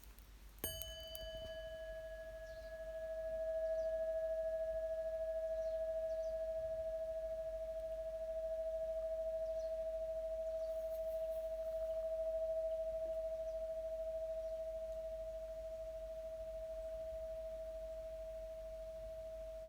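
A metal singing bowl struck once, ringing with one clear steady tone. Its higher overtones die away within a few seconds, while the main note swells about three seconds in and then holds.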